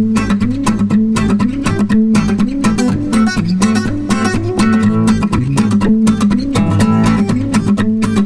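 Guitar music with steady strummed chords, cutting off abruptly at the end.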